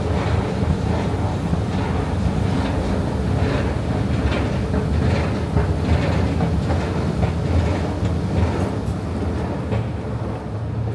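Escalator running: a steady low mechanical rumble with a regular clack about every three-quarters of a second. It eases slightly near the end.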